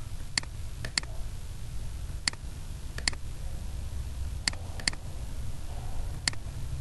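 Computer mouse buttons clicking: about nine sharp clicks at irregular intervals, some in quick pairs, over a low steady hum.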